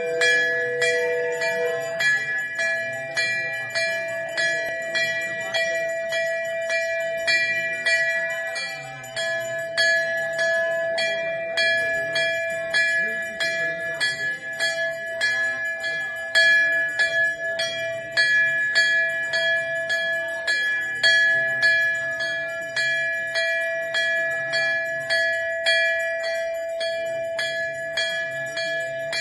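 Large brass temple bell rung continuously by hand, struck in a quick, steady rhythm, its ringing tones carrying on between strokes.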